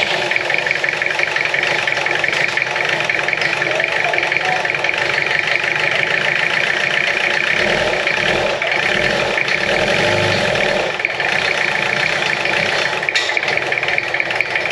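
Peugeot P4's four-cylinder diesel engine running steadily on its first start after about ten years unused, not running particularly well.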